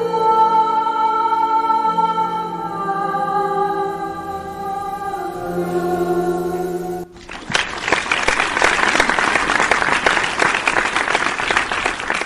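A woman singing long, held notes to her own piano accompaniment, cutting off abruptly about seven seconds in. Loud audience applause follows.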